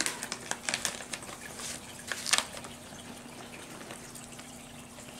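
Plastic pouch of cat treats being handled, crinkling with scattered short crackles for the first couple of seconds, then only a faint rustle.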